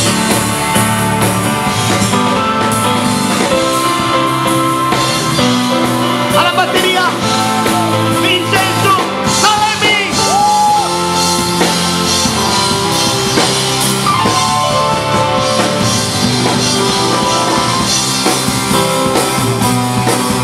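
A live band playing rock music on drum kit, electric guitar and keyboards, with a few gliding high notes near the middle.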